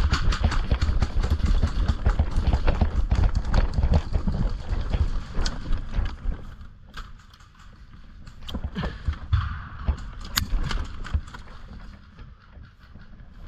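A player running in airsoft gear: heavy, rhythmic footfalls and gear rattle for about the first six seconds. Then it goes quieter, with scattered sharp clicks.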